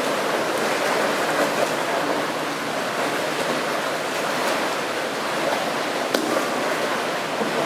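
Steady wash of water noise in a reverberant indoor pool as a whitewater kayak capsizes and is rolled back upright, with splashing and one sharp slap about six seconds in.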